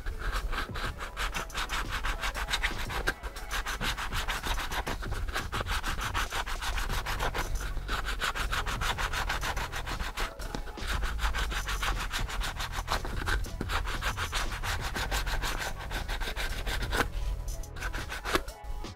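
A flap sanding disc held in the hand, rubbed quickly back and forth over the smooth underside of a subwoofer dust cap to scuff it for gluing. The rapid rasping strokes keep up steadily and pause briefly near the end.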